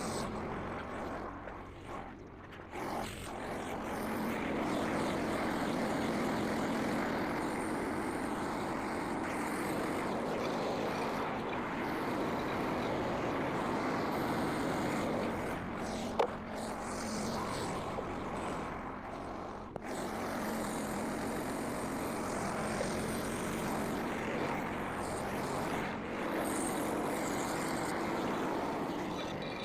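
Frontier OS27 portable bandsaw mill running steadily, its engine driving the band blade through a red oak log, with one sharp click about sixteen seconds in.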